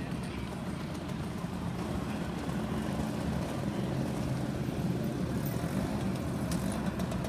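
Many scooter and motorcycle engines running together, a steady low drone that grows slightly louder about halfway through.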